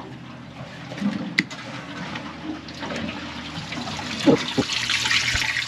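Boat's bait tank being filled by its pump, water rushing and splashing in, growing louder over the last couple of seconds. A short loud sound a little after four seconds in.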